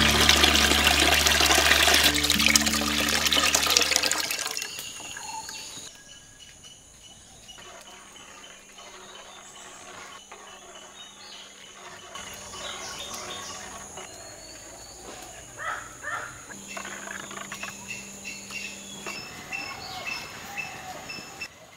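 Kithul palm sap poured through a woven basket strainer into a large clay pot, a loud splashing gush over background music that stops about four seconds in. Then it is much quieter, with faint birds chirping.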